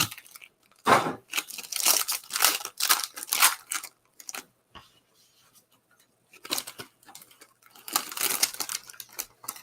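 Trading card hobby box and its sealed pack being ripped open by hand: two spells of tearing and crinkling wrapper, the first starting about a second in and the second about six and a half seconds in.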